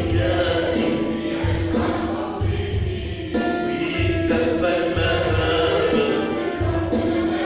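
Worship team singing an Arabic Christian hymn together, with instrumental accompaniment and a regular pulse in the bass.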